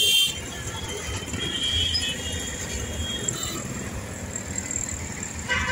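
Busy road traffic: vehicle engines and tyres make a steady low rumble. There is a short horn toot right at the start, another near the end, and fainter horns in between.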